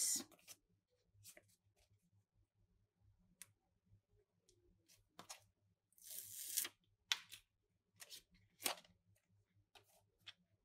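Small paper picture cutouts being handled, sorted and pressed onto a notebook page: faint rustles and light clicks, with a longer crinkle a little past halfway and another shorter one later.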